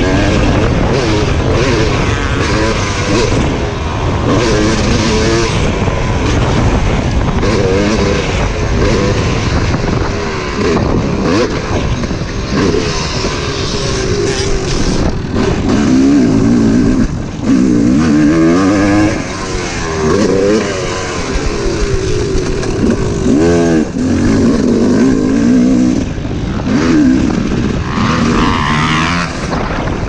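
250 cc Yamaha motocross bike engine under hard riding, its pitch climbing and dropping again and again as the rider twists the throttle, shifts and backs off for corners. Wind buffets the microphone throughout.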